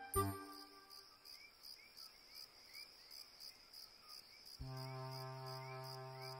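Crickets chirping at night in an even, rapid rhythm. About two-thirds of the way through, a low sustained musical chord comes in under them.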